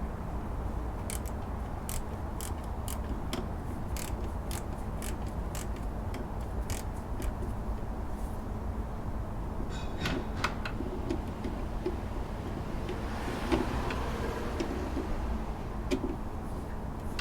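A wrench working the 12 mm locking nut on a Subaru Impreza's air-conditioning belt pulley: a run of sharp clicks about twice a second, then a few more clicks and metal clinks, over a steady low hum.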